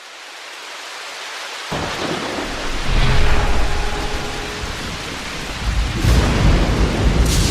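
A steady hiss like heavy rain fades in from silence. About two seconds in, deep rolling thunder joins it and swells in waves, louder near the end.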